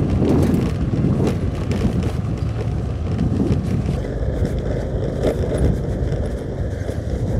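Honda Activa 3G scooter's small single-cylinder engine running as it is ridden over a rough gravel road, with a steady rumble of tyre and road noise.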